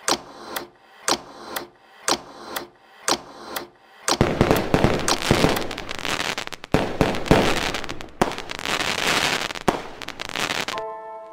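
Clock-style ticking, about two ticks a second, during a midnight countdown. About four seconds in it gives way to fireworks: repeated bangs over dense crackling, which stop shortly before the end as music begins.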